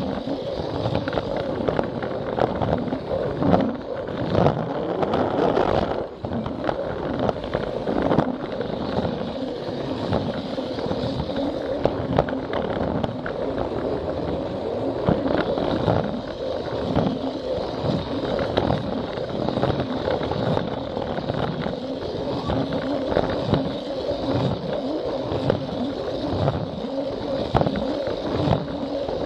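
Plarail toy train's battery motor and gearbox running with a steady whine, its wheels clicking and rattling continually over the plastic track.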